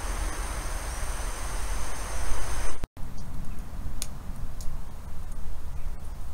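Wood-gas stove burning under a steaming kettle: a steady rushing hiss with a low rumble. After a sudden break about three seconds in, quieter outdoor air with a few faint ticks.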